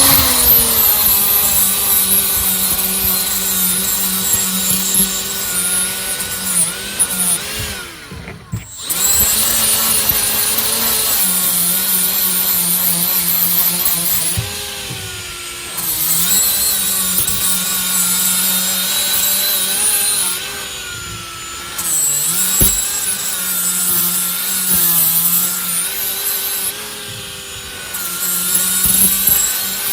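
Milwaukee M12 FUEL right-angle die grinder spinning a 3M bristle disc brush against a drill chuck, scrubbing off surface rust. The motor whine sags and recovers in pitch as the brush is worked on the metal, and cuts out briefly about eight seconds in.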